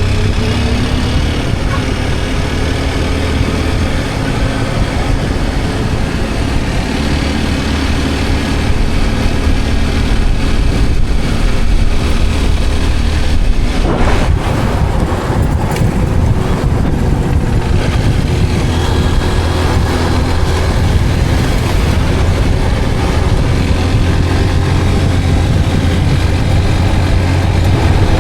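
Motorcycle engine running steadily while riding on a road, with a constant low hum and road noise. A brief rush of noise comes about halfway through.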